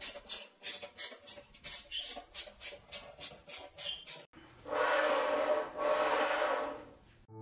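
A screwdriver drives a screw into a 3D-printed mounting plate in short repeated turns, about three or four scratchy strokes a second. After a cut, the tile-cutter slider's carriage runs along its rail twice, each pass a long swish with a steady hum.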